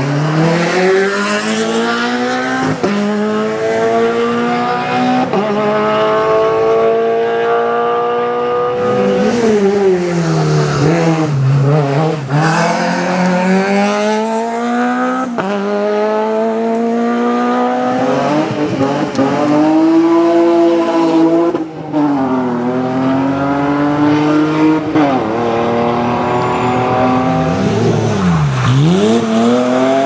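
Peugeot 208 rally car engine pulling away from a standstill and accelerating hard, its pitch climbing in each gear and dropping at the shifts. Several times the revs fall away sharply as it slows for bends, then climb again.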